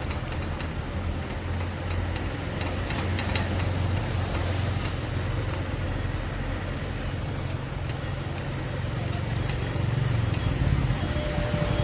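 Steady low hum of an electric fan. About seven seconds in, a fast, evenly repeating high-pitched squeak starts up, coming from the fan, which the owner blames on a mechanic who did not service it properly. A few faint clicks are heard earlier.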